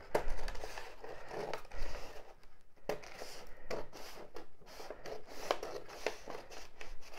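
Scissors snipping through a sheet of drawing paper to cut out a template, with the paper rustling. There is a brief pause a little under three seconds in.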